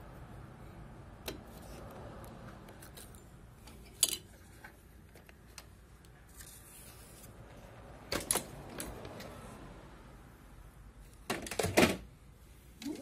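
Sharp plastic-and-metal clicks and clacks from the print head and carriage of an Epson LQ-2190 dot matrix printer being handled: one loud click about four seconds in, a quick run of clacks around eight seconds, and the loudest cluster near the end.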